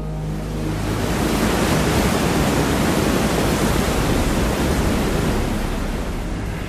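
Steady rushing of falling water from a large waterfall. It swells over the first couple of seconds and eases slightly near the end.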